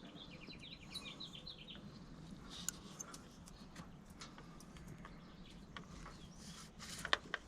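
A bird gives a short, fast run of chirps in the first second. After that there are only faint scattered clicks and light taps from handling wires and tools, with a few sharper ticks near the end.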